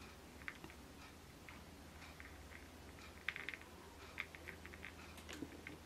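Faint rustling and scattered light clicks of fingers handling thin wool yarn, pulling the strands tight into a knot, with a short cluster of clicks a little past halfway.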